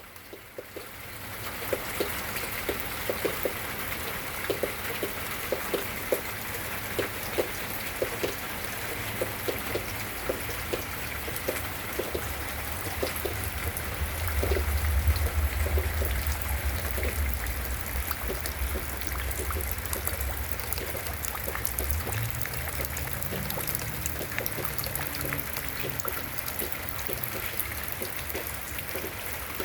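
Rain falling in a garden, a steady patter with many separate drops striking close by. A low rumble swells for several seconds around the middle and is the loudest part.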